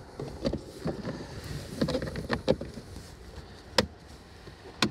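Hard plastic boot trim panels in a Kia Sportage being moved and set in place by hand: a string of light knocks and clicks, the sharpest just under four seconds in.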